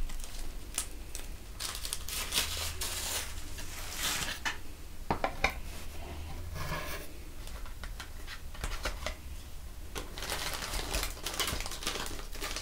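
Plastic zip-lock packets and tissue paper crinkling and rustling in intermittent bursts as items are handled and lifted out of a cardboard box, with a couple of light taps about five seconds in.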